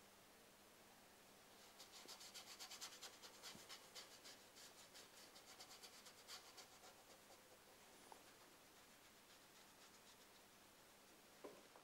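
Faint scratchy rubbing of a paintbrush dry-brushing acrylic paint onto a primed painting board, in quick repeated strokes for several seconds before tailing off.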